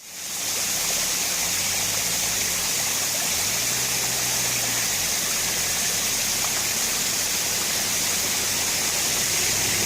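Thermal-water waterfall pouring, a steady rush of falling water that fades in right at the start.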